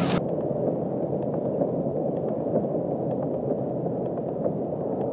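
Car cabin noise while driving through heavy rain: a steady, muffled rumble of engine, tyres and rain, with faint scattered ticks. The sound turns duller a moment in, when the higher tones drop away.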